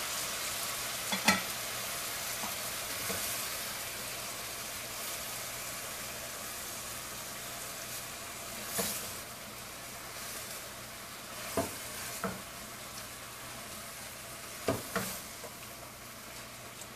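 Onions, tomatoes and spices frying in butter and oil in a stainless steel pot: a steady sizzle that slowly gets quieter, with a few sharp clicks and knocks along the way.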